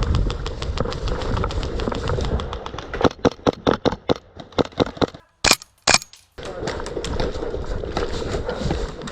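Airsoft gunfire: a running patter of sharp shots and cracks throughout, thickest about three to five seconds in, with two loud close shots about half a second apart just past the middle.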